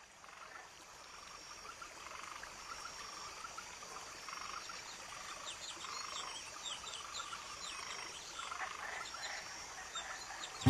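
A night chorus of frogs croaking again and again, with a high broken trill of insects above it. It fades up from silence during the first two seconds.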